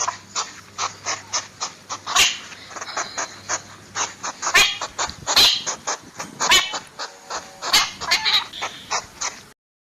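A wild animal calling in a rapid series of short, sharp calls, several a second, with a few longer, higher cries among them. The calls cut off shortly before the end.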